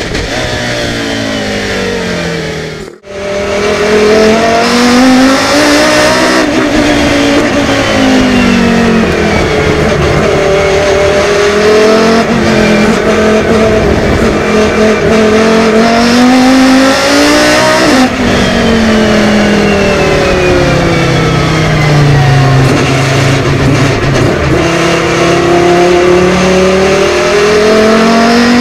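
Volvo 850 BTCC touring car's naturally aspirated 2-litre five-cylinder race engine driven hard on track. Revs climb and fall again and again as it accelerates, shifts and slows for corners. The sound drops out for an instant about three seconds in.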